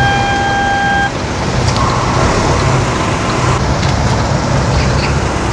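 An electronic beep held steady for about a second, then the steady low rumble of car engines and traffic.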